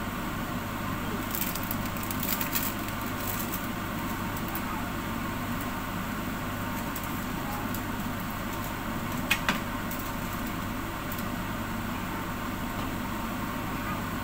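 Large stainless steel pot of sinigang broth boiling hard under a glass lid, a steady bubbling hiss. Light crackles and clicks come about two seconds in, and a sharper click near the middle.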